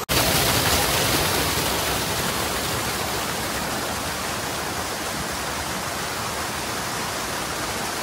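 Forest waterfall pouring steadily: an even rush of falling water, a little louder for the first second and a half, then constant.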